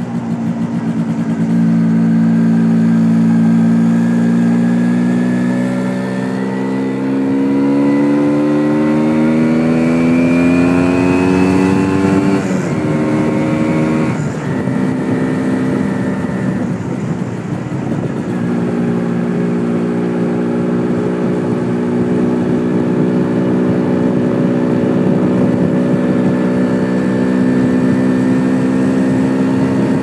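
Single-cylinder two-stroke engine of an MZ ETZ 250 motorcycle heard onboard while riding, with wind noise on the microphone. The engine note climbs steadily for several seconds, falls away abruptly about halfway through, then settles into a steady cruising note. The owner found the engine running a bit lean on too small a main jet.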